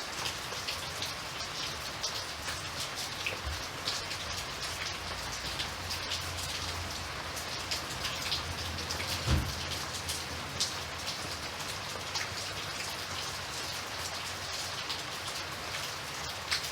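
Steady rain, with many individual drops ticking sharply on a surface. One brief low thump about nine seconds in.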